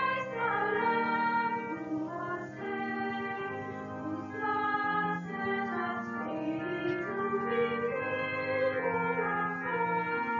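Hymn music: several voices hold sustained chords that change every second or two.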